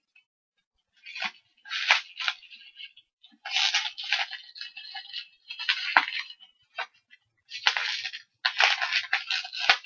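Bubble wrap crinkling and rustling in irregular bursts as it is pulled and unwound by hand, with a couple of sharp clicks near the end.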